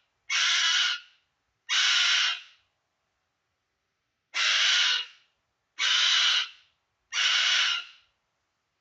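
Pet bird screaming: five harsh calls, each under a second, with a longer pause in the middle. It is screaming non-stop in agitation after its owner screamed in pain.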